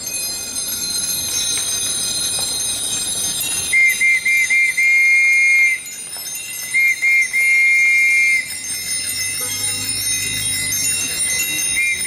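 Many bicycle bells ringing together, with a nearer bell rung in quick repeated dings and then held ringing.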